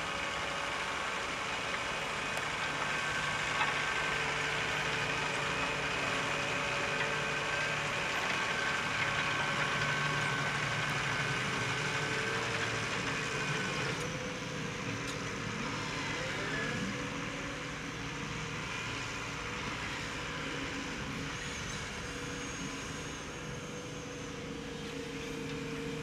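New Holland T7.210 tractor's six-cylinder diesel engine running steadily under load while pulling a reversible plough through stubble. The sound changes and drops a little about halfway through.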